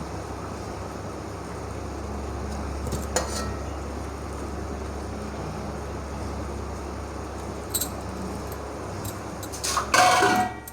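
Fish curry cooking on the stove in a clay pot: a steady low rumbling hiss. Light clinks of utensils or cookware come about three and eight seconds in, and a louder clatter near the end.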